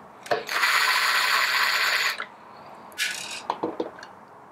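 Cordless Ridgid drill backing out a Phillips screw from the grinder's gearbox housing: the motor and gearbox whir steadily for about a second and a half. A shorter burst follows about three seconds in, then a few light clicks.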